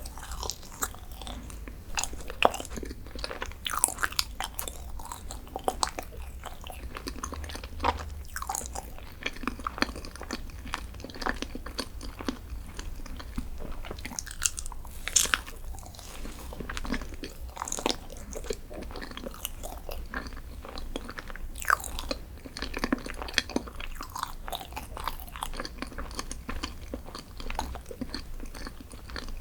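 Close-miked eating: a person biting and chewing dessert, with many sharp, irregular crackles and clicks throughout.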